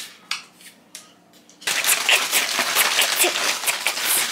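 Aluminium foil being folded and crinkled around a rack of ribs. First scattered light crackles, then from about a second and a half in a loud, dense crinkling.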